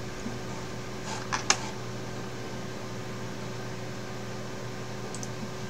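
Steady fan hum with a few faint constant tones, broken by two short clicks about a second and a half in and faint ticks near the end.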